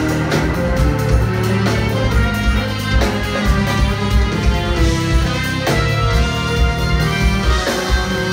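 Live jazz-fusion band playing: Hammond organ, electric guitar and electric bass over a steady drum beat.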